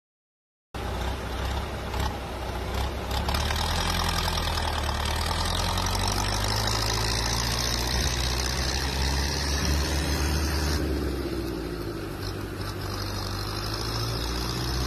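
A tractor engine running steadily under a dense rushing noise, starting suddenly about a second in.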